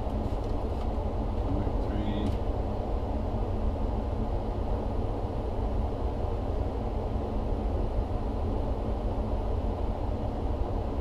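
Gas furnace running with a steady rush of air and motor hum, the sound of its fan moving air through the cabinet while the technician troubleshoots repeated shutdowns. A couple of faint short sounds come about two seconds in.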